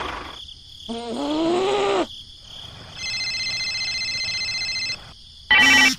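Dubbed-in cartoon sound effects: a short, gliding, voice-like call about a second in, then a steady electronic ringing tone for about two seconds, and a loud, croak-like call just before the end.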